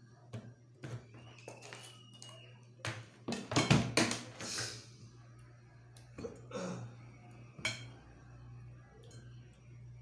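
Kitchen knife knocking and tapping on a wooden cutting board while cutting needlefish, with some clatter of plates. The knocks are irregular and loudest about four seconds in. A steady low hum runs underneath.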